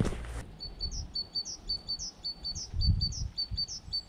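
A small bird singing a rapid repeated phrase, a short high note and a quick falling swoop, about three to four times a second. A brief rush of noise cuts off about half a second in, and a dull low thump comes about three seconds in.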